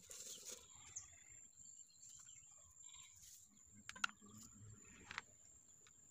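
Near-silent background with a steady high whine and faint scattered bird chirps. A few light clicks about four and five seconds in, as short cut rings of PVC pipe are set down on a flat sheet.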